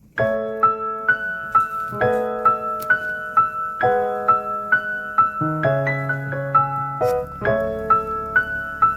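Background music: a gentle piano-like keyboard melody with evenly paced repeating notes, starting abruptly just after the beginning.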